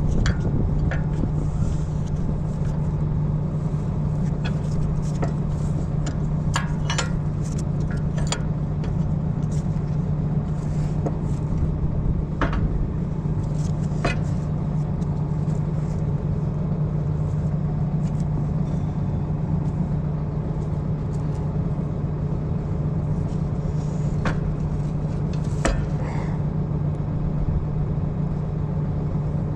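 An engine running steadily with an even hum, overlaid by scattered sharp metallic clinks of a wrench working the scraper bar adjustment on a disc harrow.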